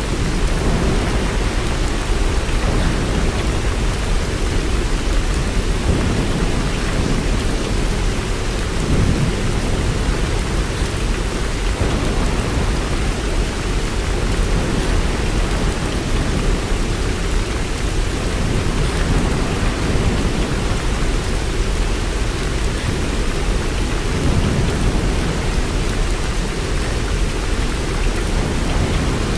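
Steady rain falling, an even hiss, with low rumbles swelling and fading underneath a few times.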